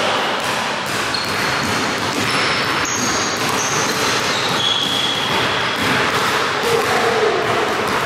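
Basketball being dribbled on a hardwood gym floor, repeated bounces, with short high sneaker squeaks now and then.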